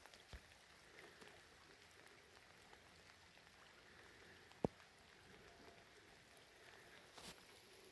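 Faint patter of light rain, with one sharp click a little past the middle.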